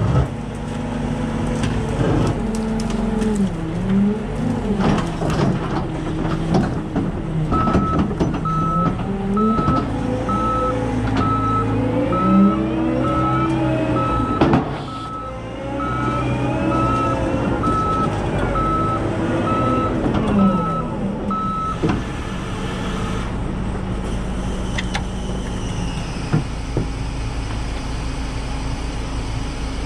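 A vehicle's reversing alarm beeps at an even pace, starting a few seconds in and stopping about three-quarters of the way through. Under it, vehicle engine noise rises and falls in pitch throughout.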